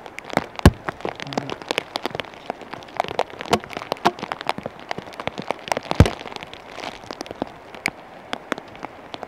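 Rain pattering in irregular sharp taps, with two louder knocks, one about half a second in and one about six seconds in.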